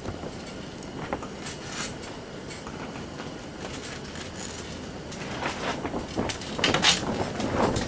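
Metal parts and tools knocking and scraping as a garage door opener is taken apart for scrap. There are scattered clicks at first, then a run of louder knocks and scrapes from about five seconds in.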